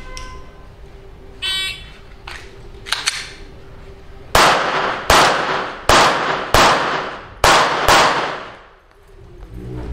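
A string of six gunshots about two-thirds of a second apart, each with a short echo trailing off, starting about four seconds in. Fainter clicks and a brief metallic ring come before them.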